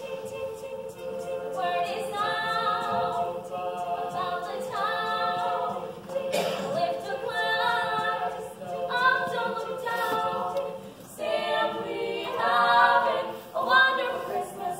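A quartet of female voices singing a cappella in close harmony, through microphones. One voice holds a long steady note for most of the passage while the others sing shorter moving phrases above it.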